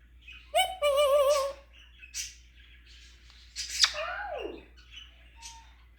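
African grey parrot whistling and chirping. A warbling whistle comes about half a second in, then a short chirp, then a loud call that rises and falls in pitch a little before four seconds, with softer chirps near the end.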